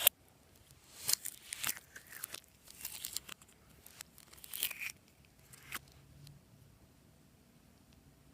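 Crisp crinkling and crunching handling sounds from slime-making materials, in a run of short bursts that stops about six seconds in.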